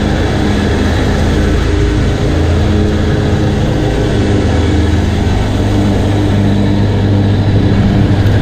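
Mowing machine's engine running steadily at a constant speed, loud and close.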